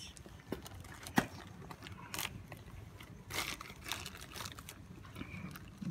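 Rustling and light knocks of a handbag and its contents being handled, tissue and papers shuffled, with a sharp click about a second in.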